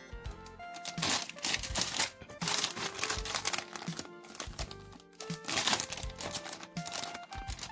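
Background music with short melodic notes, over bursts of crinkling and rustling from plastic packaging as a model kit's bagged parts are handled.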